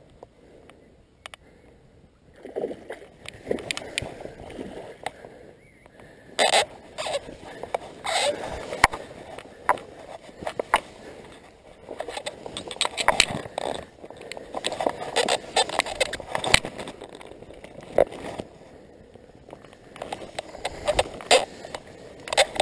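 Tall grass and reeds rustling and brushing against the camera as the angler moves along the bank, with irregular sharp clicks and knocks of handling noise from the fly rod and reel. The rustling comes and goes in uneven spells, quieter in the first two seconds.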